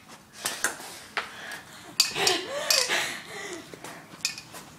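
Scattered sharp knocks and clatters of objects being hit and knocked about during horseplay, with a short vocal sound about two seconds in.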